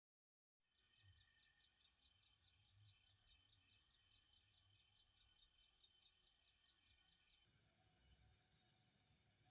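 Faint, steady high-pitched trilling of night crickets, starting abruptly about half a second in; near the end it switches suddenly to a higher-pitched trill.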